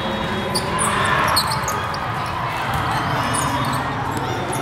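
Echoing hubbub of a large hall with several volleyball matches going on, with volleyballs being struck and bouncing.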